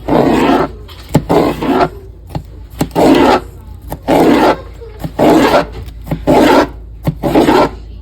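Repeated rasping, scraping strokes, about one a second, each about half a second long and starting with a sharp click.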